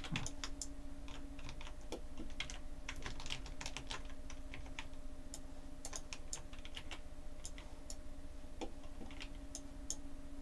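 Computer keyboard and mouse clicking in irregular, scattered runs over a steady low hum.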